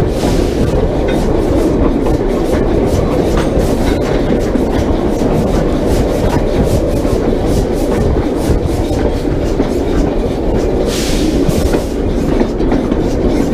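Narrow-gauge steam train hauling loaded dirt dump cars: a steady rumble of the cars running, with wheels clicking and clanking over the rail joints. About eleven seconds in there is a brief hiss of steam.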